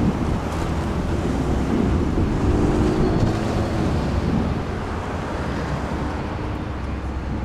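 Road traffic crossing the railroad tracks close by: tyre and engine noise swelling as a minivan passes and then easing off, with a faint steady hum through the first few seconds and wind buffeting the microphone.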